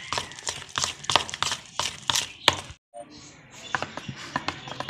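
Spoon beating a thick gram-flour and potato batter in a plastic bowl: rapid wet slaps and knocks of the spoon against the bowl. There is a brief break near the middle, then softer stirring.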